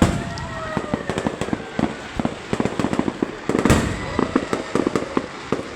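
Fireworks going off: a dense run of sharp crackling pops, with a louder bang a little after halfway, and a few tones that glide up and down in pitch.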